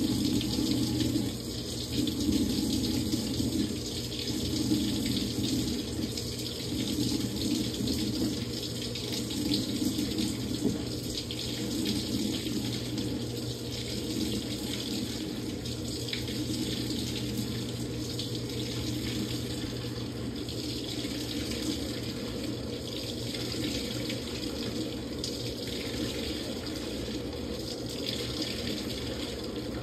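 Samsung top-load washing machine filling at the start of a quick wash cycle: water rushing into the tub over a steady low hum.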